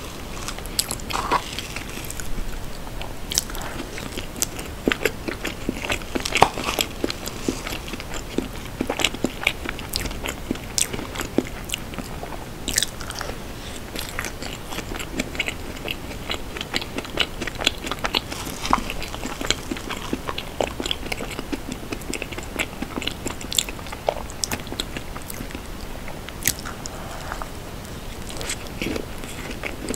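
Close-miked eating sounds: wet chewing and mouth clicks on a soft cream dessert, mugwort tiramisu, mixed with a spoon scraping and tapping inside a plastic cup. Many short sharp clicks come through the whole stretch.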